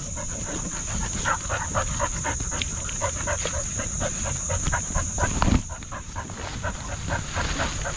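A dog panting rapidly and close up, about four to five breaths a second, over a low rumble of movement and a steady high insect drone. A thump lands about five and a half seconds in.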